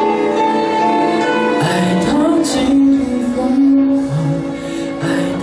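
A male vocalist singing a slow song into a microphone over instrumental backing, holding long notes, with the voice coming through the hall's PA.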